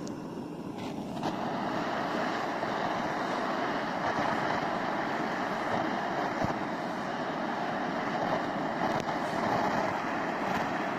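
Small handheld gas burner's flame hissing steadily as it heats ecowool insulation in a fire test, getting louder about a second in.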